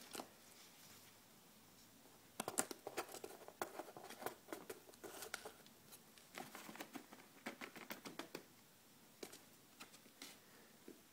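Gray squirrel scratching and scrabbling at cardboard with its paws and teeth while caching a peanut in the box. The sound is quick, faint patters of small scrapes and clicks in spells from about two seconds in to about eight, then a few stray ones.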